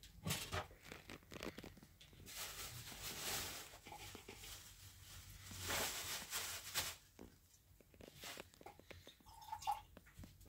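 Soft clicks, rustles and scrapes of people eating by hand from shared plates on a floor cloth: flatbread being torn and handled, fingers working rice on the plates, dishes knocking lightly.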